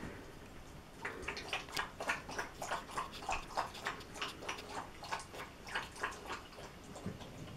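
A dog lapping water from a bowl: a steady run of wet laps, about three or four a second, starting about a second in.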